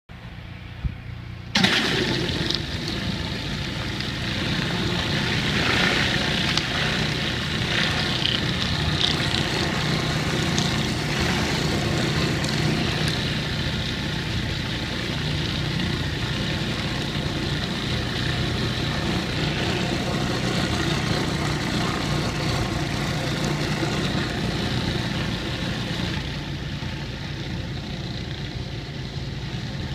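Pressure washer engine running steadily. About a second and a half in, the loud hiss of a rotary surface cleaner spraying water onto brick pavers joins it. The hiss eases a little near the end.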